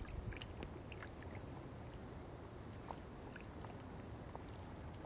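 Faint low rumble of wind on the microphone and water lapping on a choppy lake, with a few faint short ticks scattered through it.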